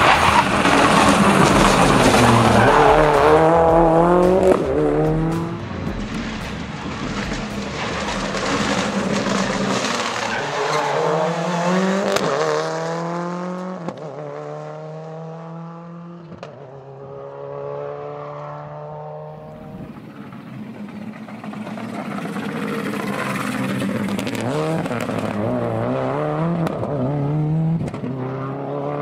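Subaru Impreza rally car under hard acceleration, its engine note climbing through the gears with sharp upshifts. It passes close and loud in the first few seconds, fades away in the middle, then comes back up near the end as it passes again.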